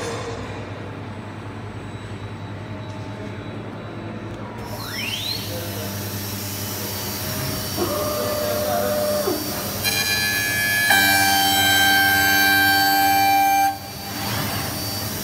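CNC wood lathe-mill running: a steady hum, then a whine rising in pitch about five seconds in as the noise grows. Several steady whining tones build up later and cut off abruptly near the end.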